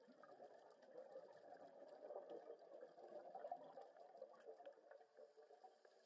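Faint bubbling and crackling of a scuba diver's exhaled air bubbles, heard underwater. It starts suddenly, swells and fades out near the end, like one long exhalation through a regulator.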